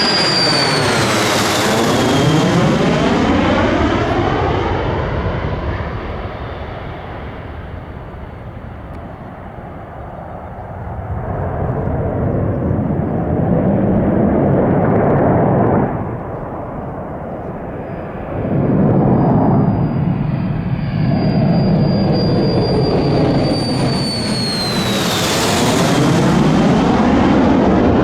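Lockheed Martin F-35A fighter jet flying past with its single turbofan engine running loud: a high whine that drops in pitch as it goes by, over a deep rumble. This happens twice, near the start and again about 25 seconds in.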